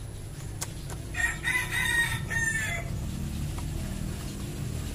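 A rooster crowing once, starting about a second in and lasting about a second and a half.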